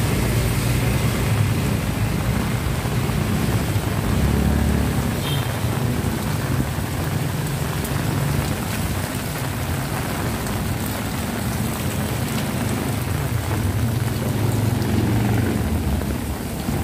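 Heavy rain falling steadily on a wet concrete street and pavement, a constant hiss with a low rumble underneath.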